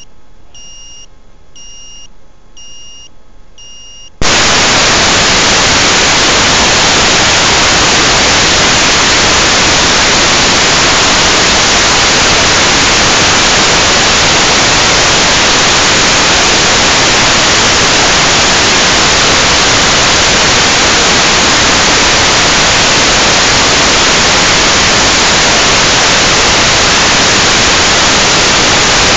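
A run of short high electronic beeps, a little under one a second. About four seconds in, a sudden loud, steady hiss of static cuts in: the FPV video receiver's audio with no signal coming through.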